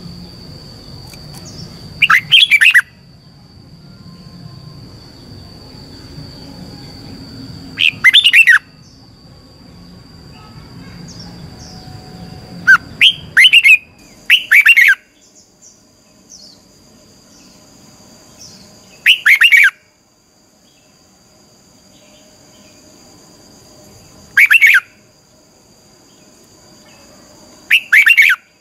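Red-whiskered bulbul singing short, loud phrases of about half a second each, seven in all, a few seconds apart, over a steady high-pitched background tone.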